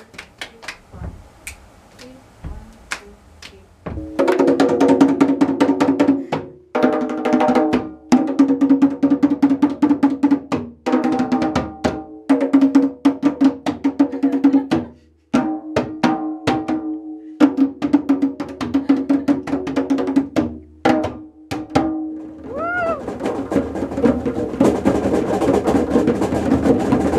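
A few sparse hand claps, then about four seconds in a group of djembes starts up, played by hand in a dense, loud rhythm. The drumming breaks off and restarts several times.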